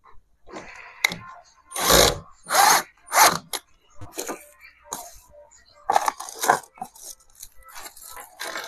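Small plastic bags of door fittings being handled: several short crinkling rustles, then a run of light clicks and knocks of small metal parts and tools on the wooden door.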